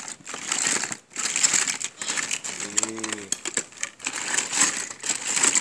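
Plastic toys clattering and rustling as hands rummage through a bin full of them, with many small clicks and knocks. A brief pitched sound, like a short hum, comes about three seconds in.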